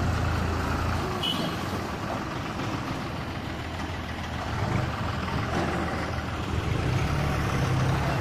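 Farm tractor diesel engines running while hauling a trailer through deep mud, a steady low engine drone. The engine note drops back about a second in and picks up again near the end.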